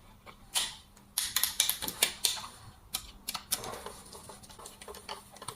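Irregular small clicks and taps from hands and a tool working the wire terminals of a four-gang two-way wall switch as the last connections are made, busiest in the first few seconds.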